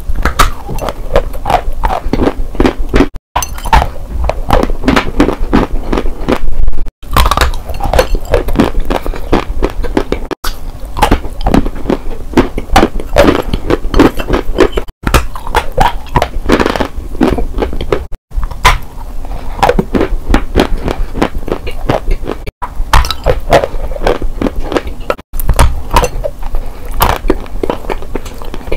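Close-miked biting and crunching of dry edible clay chunks, with continual crackly chewing. The sound drops out for an instant several times.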